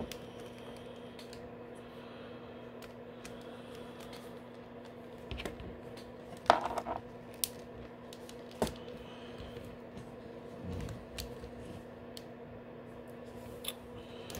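Hard plastic action figure being handled and turned in the hands: scattered light clicks and taps of plastic, with one sharper click about six and a half seconds in, over a steady low hum.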